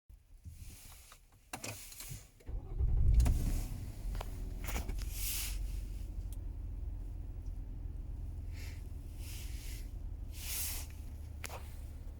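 Nissan Teana J32 engine starting about two and a half seconds in after a few clicks, then settling into a steady low idle. Short bursts of high hissing come and go over the idle every second or two.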